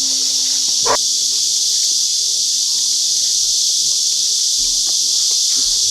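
Steady, loud, high-pitched drone of a summer insect chorus, unbroken throughout, with a brief knock about a second in.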